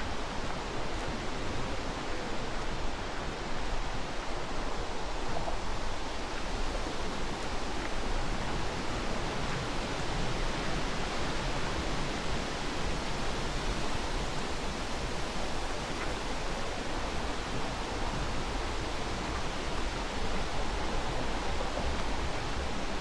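A steady, even rushing noise with a low rumble underneath, unchanging throughout.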